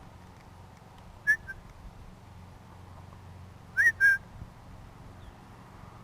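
Three short, high, whistle-like chirps: one about a second in, then two in quick succession about four seconds in.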